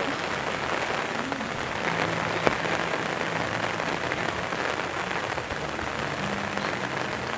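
Steady rain falling, with one sharp tap about two and a half seconds in.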